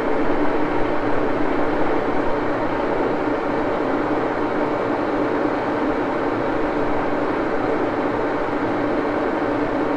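Axelson engine lathe running steadily under power, its geared headstock giving an even mechanical hum with several steady tones.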